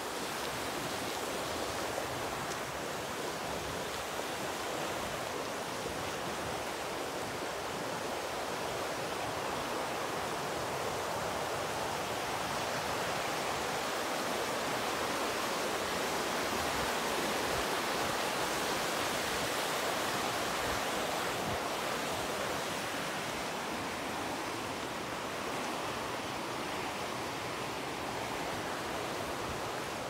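River rushing over rocks, a steady rush of water that swells a little about halfway through.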